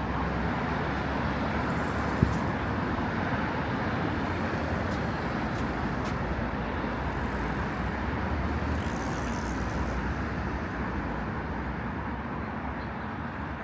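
Steady road traffic noise, with one sharp click about two seconds in.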